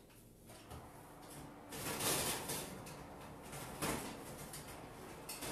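An oven door opening and a metal baking tray of granola being pulled out of the oven. There is a noisy rush from about two seconds in, with a couple of sharp knocks.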